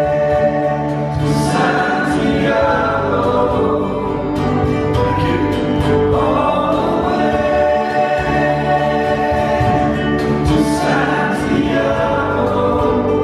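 A live folk band playing, with several voices singing together in harmony over acoustic guitars.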